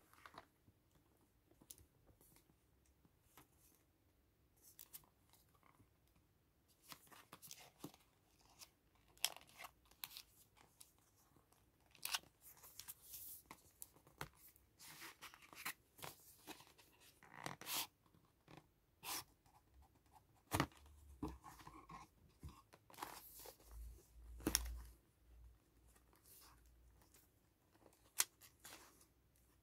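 Quiet handling of cardboard and plastic product packaging: scattered clicks, scrapes and short rustles as a smartphone's cardboard box is picked up and its inner box slid out of the sleeve. A few low bumps come about two-thirds of the way through.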